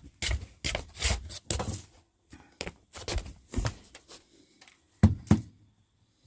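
Knocks and rattles of parts being handled while a bathroom heater is worked on: a quick run of knocks, then fainter clicks, then two sharp knocks about five seconds in.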